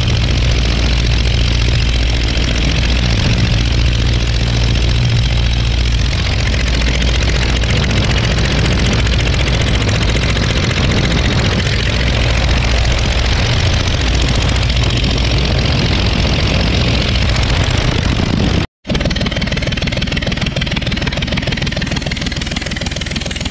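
Verner 3V three-cylinder radial engine running steadily on a ground run. The sound cuts out for an instant about three-quarters of the way through, then carries on slightly quieter.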